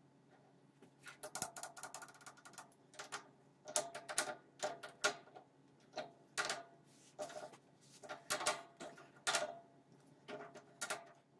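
Steel parts clicking and knocking as a tool holder is fitted onto a lathe's lever-clamped tool post: an irregular run of sharp metal clicks, some with a short ring.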